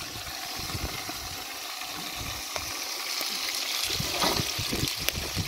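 Partridge and tomato stew sizzling and bubbling in a lidded pan over embers, the hiss growing louder about three seconds in as the pan is uncovered, with a few light clicks.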